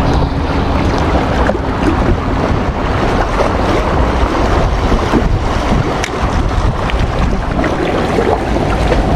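Steady wind rumbling on the microphone, with water washing against the rocks.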